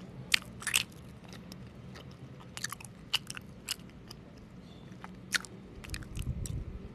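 Close-miked chewing of homemade mochi ice cream: irregular wet mouth clicks and smacks, the loudest about a second in, with a low rumble near the end.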